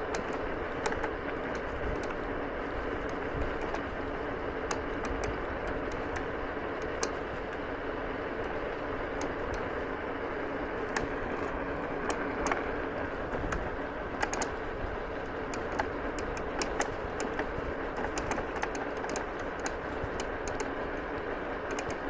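Egret X electric scooter riding over gravel: a steady rolling noise from the tyres, with many short, sharp clicks and ticks from stones and rattles scattered through it.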